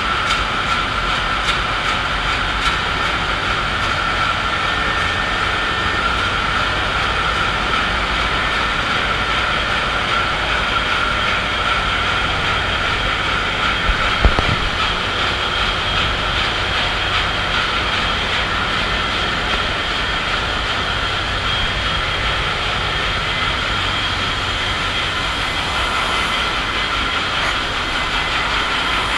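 Engine room din of a B&W two-stroke marine main engine running at 51 rpm: a loud, steady mechanical noise with a constant high whine over it. A single short knock comes about halfway through.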